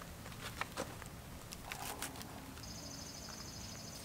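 Tree-tent straps being wrapped around a pine trunk: soft rustling of nylon webbing with a few short scratchy clicks against the bark. From about two and a half seconds in, a high, even trill runs in the background.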